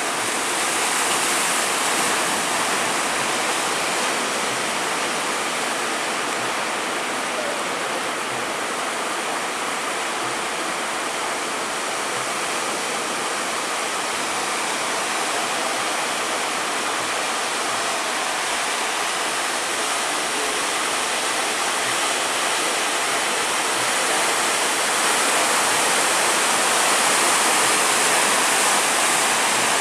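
Steady rushing of rough sea water, swelling slightly near the end.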